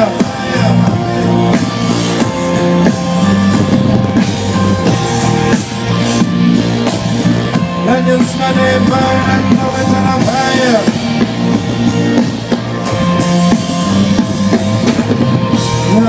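Live band playing through the PA of an outdoor stage at a sound check: drum kit and guitar, with some singing.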